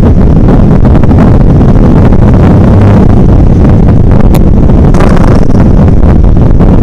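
Steady, very loud wind buffeting on the microphone of a motorcycle-mounted camera while riding, with the motorcycle's running and road noise underneath.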